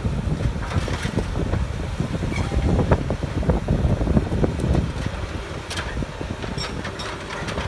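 Diesel engine of a Caterpillar 324D tracked excavator running under load as it works a pile of demolition rubble, with scattered knocks and clatter of brick and debris, and wind buffeting the microphone.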